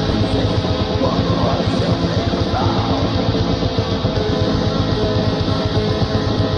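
Black metal music: distorted electric guitars over dense, fast drumming, loud and unbroken.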